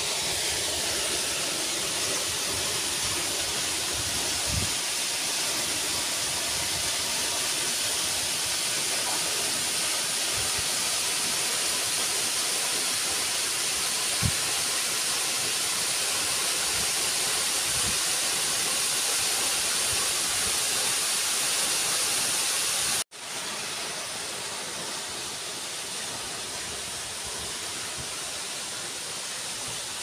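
Waterfall pouring into a pool: a steady hiss of rushing, splashing water. About two thirds of the way through it cuts off abruptly and gives way to a slightly softer, steady water sound.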